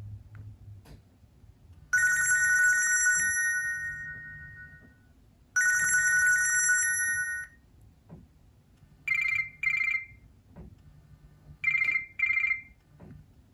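Nokia C7-00 ringtone in a ringing-phone style: two long rings a few seconds apart, each fading away, then two pairs of short quick beeps.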